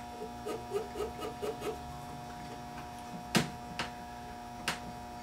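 Cotton swab scrubbing the tape heads of a Teac A-3340 reel-to-reel deck: a quick run of short rubbing strokes, about five a second, in the first two seconds. Then come three sharp clicks, the first the loudest, over a steady electrical hum.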